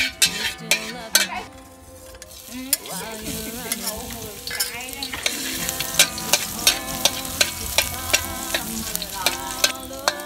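Beef and water hyacinth being stir-fried in a pan: hot oil sizzling while a utensil stirs the food and strikes the pan in repeated sharp clacks, with a short lull about two seconds in.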